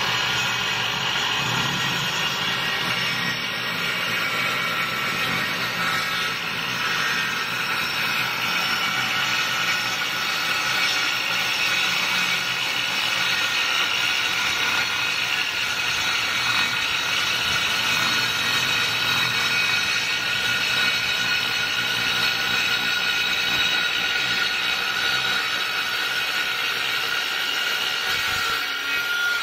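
Handheld electric circular saw cutting a long straight line through a plywood sheet, the blade running steadily through the wood and stopping near the end.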